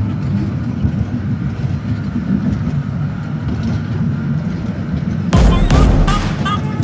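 Steady low rumble of a moving vehicle. About five seconds in, loud music with a heavy beat and singing suddenly starts over it.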